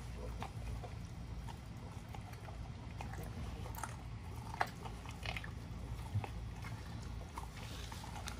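XL pitbulls chewing raw chicken: irregular wet bites and crunches, with two sharper crunches around the middle.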